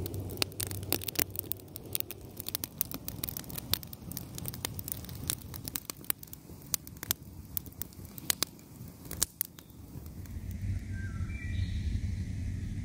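Wood campfire crackling, with many sharp irregular snaps and pops. About ten seconds in the crackling stops, and a bird calls a few times over a low rumble.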